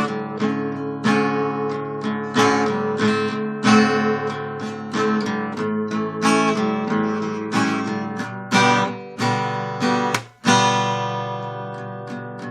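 Acoustic guitar strummed in repeated chords, with no singing. The strumming breaks off for a moment about ten seconds in, then resumes.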